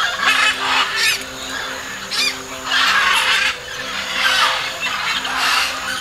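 A flock of macaws squawking loudly, about six bouts of overlapping calls, over soft background music with sustained low notes.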